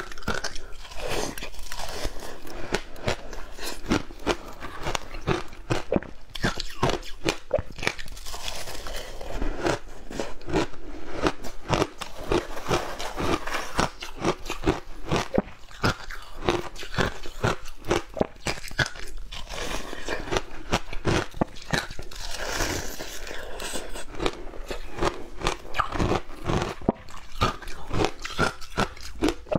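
Shaved ice coated in passion fruit pulp being bitten and chewed, a fast, dense run of crisp, close-miked crunches.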